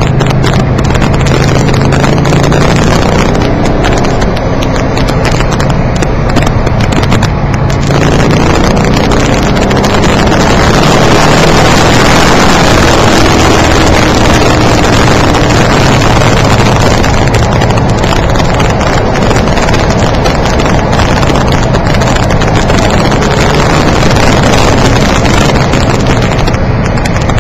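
Car engine and road noise heard from inside the cabin while the car is driven round a race circuit, loud and steady throughout, and distorted because the microphone was set too sensitive.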